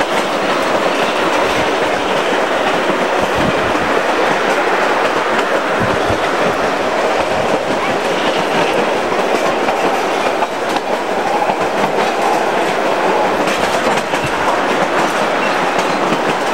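A train running on its rails, heard from aboard: a loud, steady rolling noise of the moving train.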